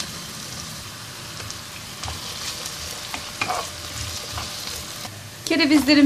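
Cubed potatoes, carrots and onions sizzling in hot olive oil in a pot, with a few soft knocks of a wooden spoon as the vegetables are stirred.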